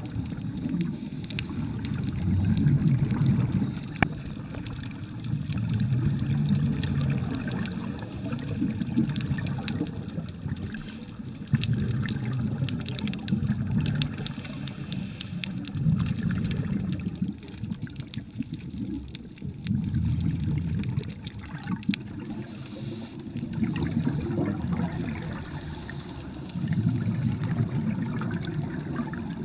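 Underwater exhaled bubbles from a scuba regulator, coming in low bubbling surges of two to three seconds, about every four seconds, with the diver's breathing.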